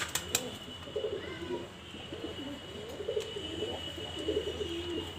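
Domestic pigeons cooing, a run of repeated low coos.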